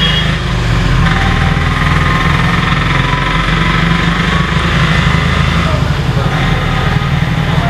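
Steady traffic noise: motor vehicle engines running with a continuous low rumble.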